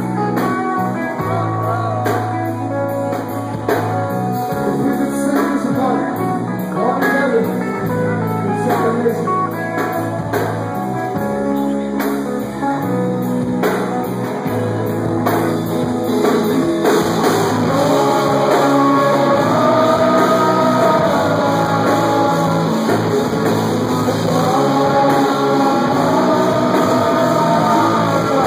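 Live rock band playing: electric guitar and bass over drums, with singing coming in over the band about halfway through.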